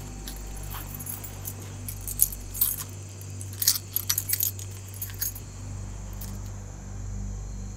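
A bunch of keys jangling and clinking as they are handled, in a cluster of sharp jingles mostly between about two and five and a half seconds in. A low, steady hum runs underneath.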